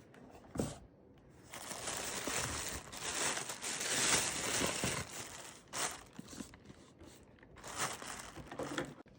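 Packing material being handled, crinkling and rustling in spells: a long stretch near the start, then shorter bursts.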